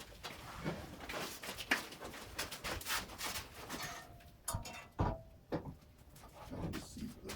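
Knocks, shuffling and handling noise as a wood lathe is lifted and set down onto its metal stand, with a few heavier thumps about four to five seconds in.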